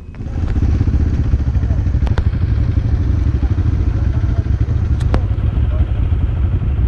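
Motorcycle engine running close by, a steady, rapid low pulsing, with a couple of sharp clicks over it.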